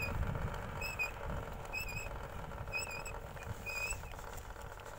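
Royal Enfield Meteor 350's front disc brake squeaking while the bike rolls: a short high chirp repeating about once a second, over wind and road rumble. The showroom's mechanic put the noise down to the brake pads.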